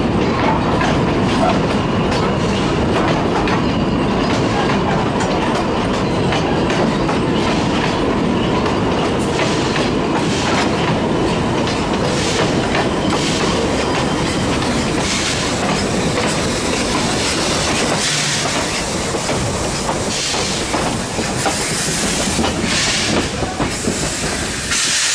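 Narrow-gauge heritage railway carriages rolling slowly past on 2 ft 6 in track, wheels clacking over the rail joints with a steady rumble. Short bursts of hiss come in during the second half.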